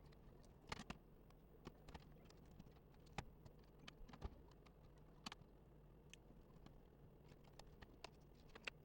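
Faint, irregular light clicks and taps over a steady low hum, like small laptop parts being handled.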